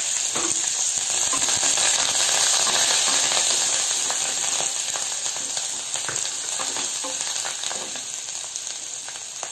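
Curry leaves and a crushed green chilli–garlic paste sizzling in hot oil with mustard seeds, stirred with a wooden spatula across the pan, with small crackles and scrapes. The sizzle slowly dies down through the second half.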